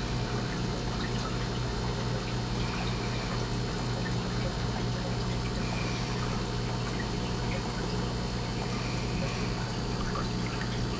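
Steady trickling and pouring of water with an even low pump hum from a running saltwater frag tank's circulation.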